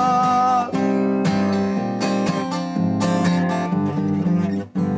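Acoustic guitar strummed in a steady rhythm as an instrumental break between verses of a sung ballad, with the singer's held last note of the refrain ending under a second in.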